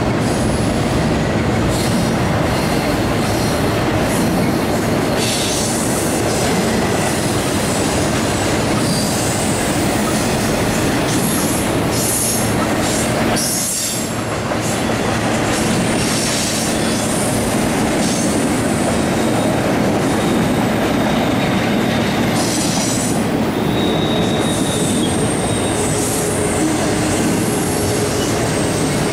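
Double-stack intermodal freight cars rolling past at steady speed: continuous wheel-on-rail rumble with intermittent high-pitched wheel squeal, and a brief lull about halfway through.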